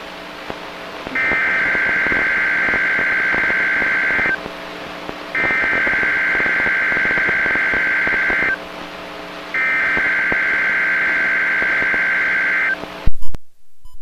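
Weather-radio EAS/SAME data header for a weekly test, received on a Sangean CL100: three bursts of warbling two-tone data, each about three seconds long with a second's gap between them. A loud click comes about a second before the end, and the sound then cuts out.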